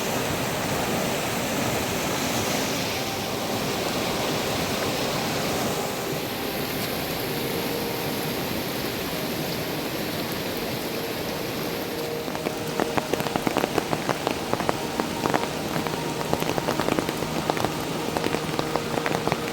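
Heavy rain falling steadily. From about two-thirds of the way in, loud irregular drops start tapping close by over the steady hiss.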